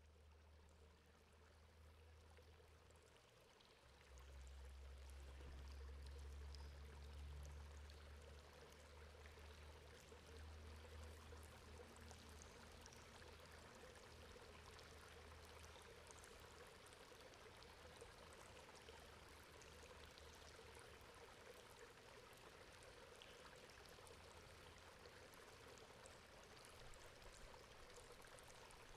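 Faint, steady water running and trickling through a metal grate, with small drips ticking throughout. A low rumble sits under it for the first ten seconds or so, then fades.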